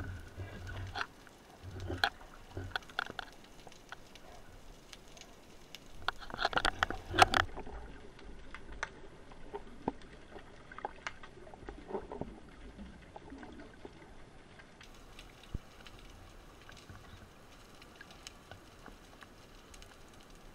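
Underwater sound through a camera's waterproof housing: scattered clicks and crackles, with a louder stretch of water rush and knocks about six to seven seconds in.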